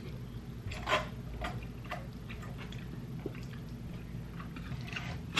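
A person chewing a mouthful of birria ramen noodles: soft wet smacks and clicks, roughly one a second, the strongest about a second in, over a steady low hum.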